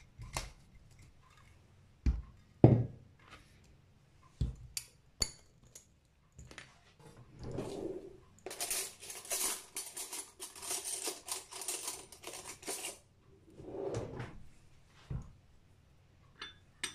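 Glass olive-oil bottle and small glass clip-top spice jars being handled and set down on a table: a few separate knocks and clinks, then several seconds of scratchy rustling in the middle.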